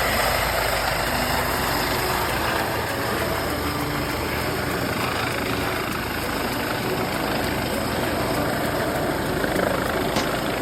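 Medical helicopter's rotor and turbine engine running steadily during the approach to landing: a constant broad rush of noise over a strong low rumble.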